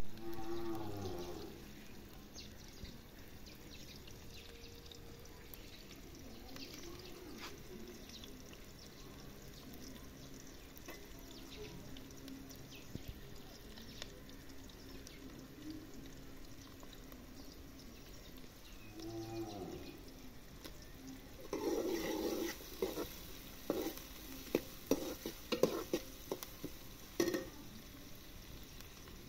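A cow mooing twice, about a second in and again around nineteen seconds in. From about twenty-two seconds a metal ladle scrapes and stirs onions frying in oil in an aluminium karahi, with a hiss of sizzling between the strokes.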